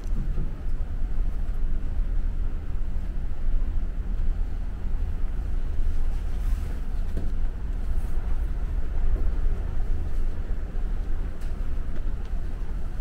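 Steady low rumble with a light hiss above it and a few faint ticks.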